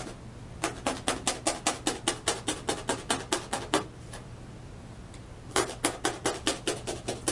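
Felting needle stabbing wool roving through paper into a self-healing tack board: quick, even taps about five or six a second, in two runs with a pause of nearly two seconds between them.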